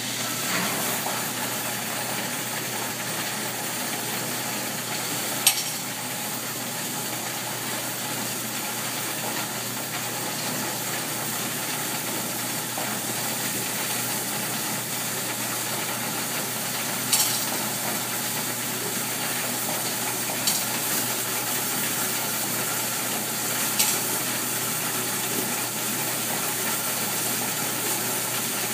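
Coin-counting kiosk running as it counts a load of coins: a steady whir that starts at the outset, with four sharp clicks scattered through it.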